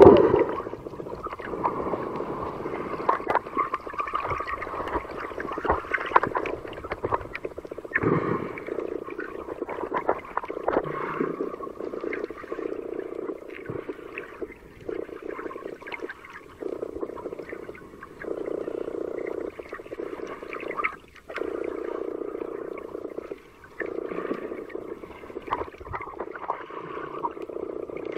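Muffled underwater sound picked up by a waterproof camcorder held under the sea. It is a low, dull rushing that comes in stretches of a couple of seconds with short breaks, scattered with clicks and crackles.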